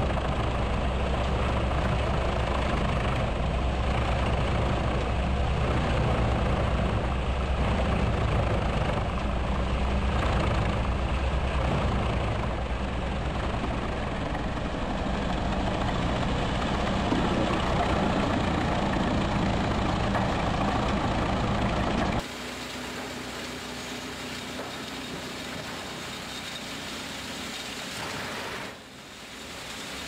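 Starchl U-1200 lorry-mounted drum wood chipper running and chipping logs fed by its crane: a loud, steady machine noise with a deep engine drone underneath. About two-thirds of the way in, the sound drops suddenly to a quieter, steadier run.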